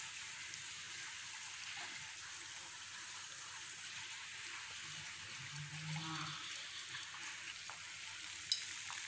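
Hot oil sizzling steadily as a disc of athirasam dough fries in a pan over a low flame, with a single sharp click near the end.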